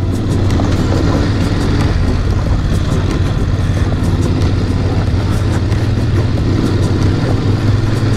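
Adventure motorcycle riding a loose gravel road, its engine running steadily under the noise of the tyres on the stones.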